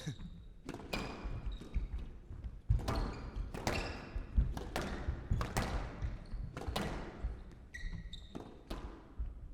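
Squash rally: the ball is struck by rackets and smacks off the court walls in a quick run of sharp hits, echoing in the hall, with a few short shoe squeaks on the court floor.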